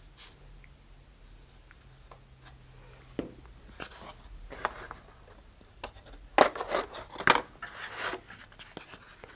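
Handling noises as balsa-wood wings are fitted into the slots of a model rocket's body tube on a cutting mat: scattered scrapes, rustles and small taps. The loudest cluster, with a couple of sharp ticks, comes about two thirds of the way in.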